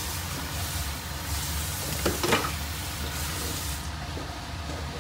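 A metal slotted spoon scraping and knocking in a metal pot of rice, with a few sharp clicks about two seconds in, over a steady hiss and low hum.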